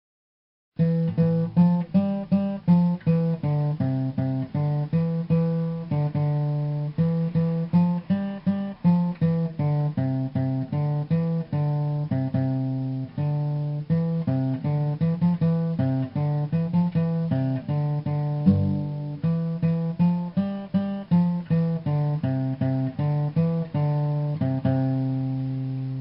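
Solo guitar music: a quick run of plucked single notes over sustained low notes. It starts about a second in, after silence.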